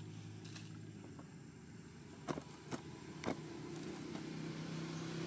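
A steady low engine hum runs throughout and grows a little stronger in the second half. A few sharp clicks come about halfway through.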